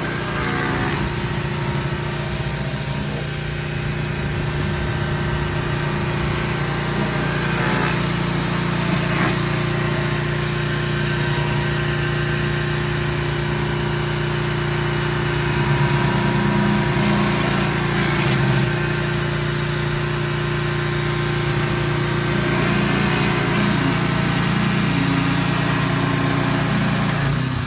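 Craftsman 2700 PSI gas pressure washer's engine running steadily, with a hiss of water spraying under a surface-cleaner attachment being drawn over the ground.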